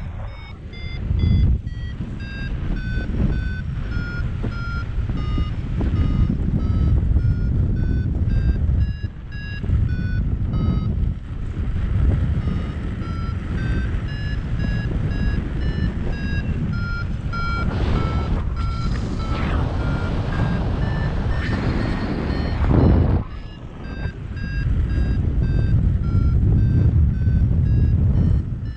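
Paragliding variometer beeping in short tones about twice a second, the pitch stepping up and down, the climb tone that signals the glider is rising in lift. Wind rushes over the microphone underneath.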